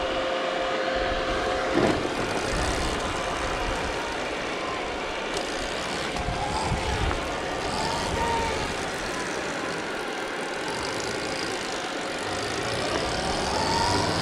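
Stark Varg electric dirt bike's motor whining, rising and falling in pitch a few times, over a continuous rush of wind and rumble.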